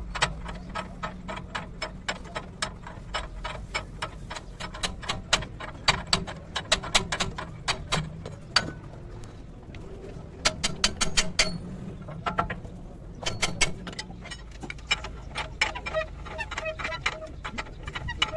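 Hydraulic bottle jack being pumped under a truck's rear axle housing, giving sharp metallic clicks about three a second, in runs with short pauses.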